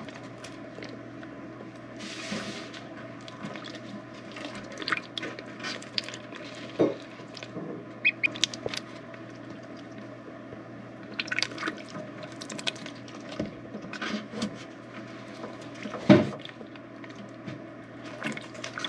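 Ducklings paddling and splashing in shallow water in a stainless steel sink: scattered small splashes and drips, a short rush of water about two seconds in, and a louder splash about sixteen seconds in.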